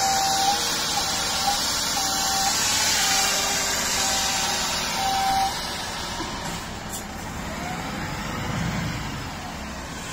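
A fire truck's signal sounds a string of short, evenly spaced beeps, about one every three-quarters of a second, which stop about halfway through. Underneath is a steady hiss and the low running of the Volvo FL280 fire truck's engine as it drives slowly.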